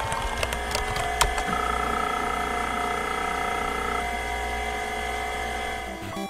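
A steady electric machine whine of several held tones over a low hum, with a few sharp clicks, after spinning up.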